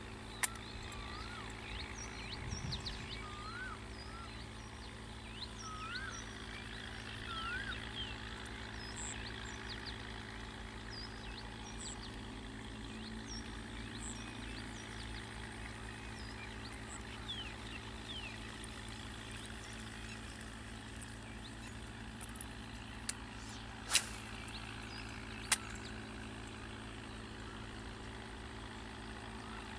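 Outdoor ambience: small birds chirping in short rising and falling calls over a steady low hum, with a few sharp clicks, one about half a second in and three more near the end.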